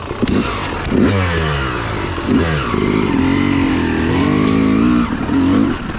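Yamaha YZ250X two-stroke dirt bike engine revving under throttle as the bike pulls away, the pitch rising sharply several times early on, then holding steadier before the revs drop about five seconds in.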